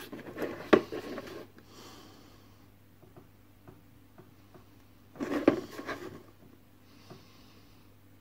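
Hands handling small objects at a workbench: two brief bursts of rustling and knocking about five seconds apart, each with one sharp click, and a faint soft scratching after each.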